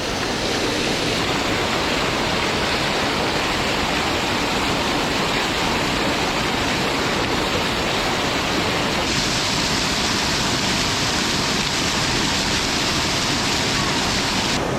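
Steady rush of fast-flowing water from a creek or spring cascade. It turns a little hissier about nine seconds in.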